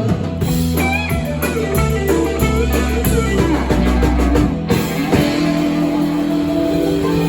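Live rock band playing, an electric guitar bending notes over a bass line and drums. The low bass notes drop out about two-thirds of the way through.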